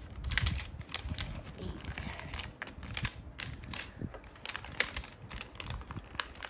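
Gloved hands unwrapping the white protective wrapping from a large plastic collectible figure's arm and hand: irregular crinkling with many light clicks.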